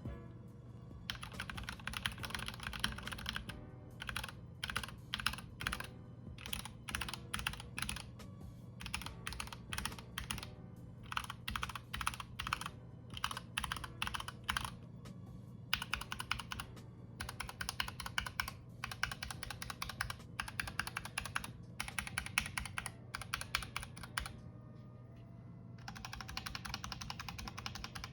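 Typing on a mechanical keyboard with Gateron Red linear switches and PBT dye-sublimated cherry-profile keycaps, as a sound test: runs of fast keystrokes broken by short pauses.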